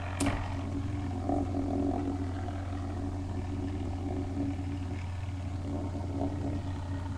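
Beyblade spinning tops whirring and scraping against each other in a plastic stadium, with a sharp clack about a quarter second in.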